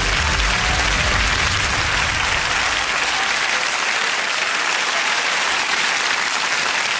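Studio audience applauding steadily, with the last of the music underneath fading out about two and a half seconds in.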